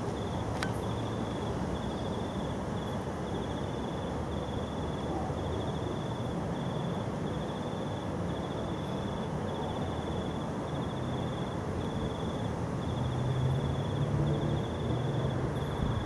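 A cricket chirping steadily: short, rapidly pulsed chirps at one high pitch, a little more than one a second, over a steady low background rumble.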